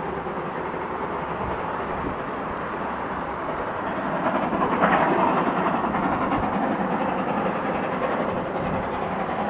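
A steam train running under a road bridge: a steady rumble of locomotive and train, growing somewhat louder about four to five seconds in.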